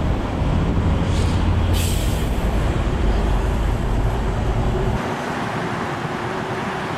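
Road traffic passing through a busy intersection, with a heavy low rumble that drops away abruptly about five seconds in. Two short hisses sound in the first two seconds.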